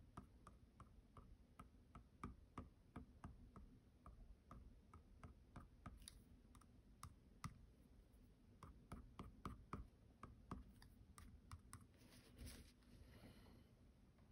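Faint, irregular light taps of a drawing tip dabbing tiny dots onto mixed-media paper, several a second in clusters with short pauses between.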